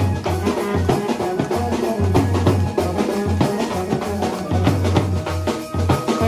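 Brass band playing live: brass horns over a steady, repeating drum beat.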